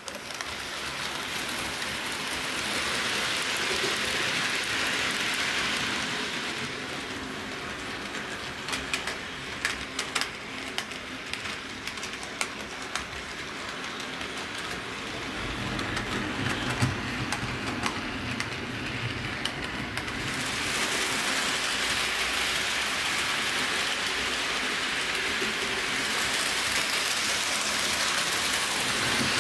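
Bachmann HO-scale electric model train running on its track: a steady whirring and rattling that swells and fades, with a cluster of sharp clicks about a third of the way through.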